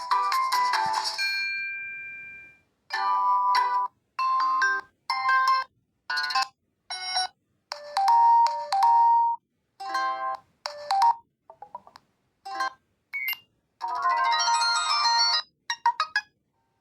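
Built-in tones of a Reeder P13 Blue smartphone previewed one after another. A tuneful melody fades out about two seconds in, followed by a string of short electronic chimes and jingles, each lasting about a second, with brief silent gaps between them.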